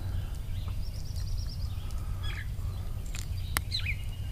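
Songbirds chirping, several short calls and a quick run of high notes, over a steady low rumble. A single sharp click comes about three and a half seconds in.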